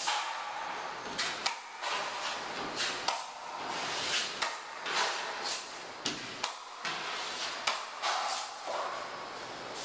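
Drywall taping knife scraping joint compound off a metal mud pan and spreading it across drywall, in irregular strokes with a few sharp clicks of the knife on the pan.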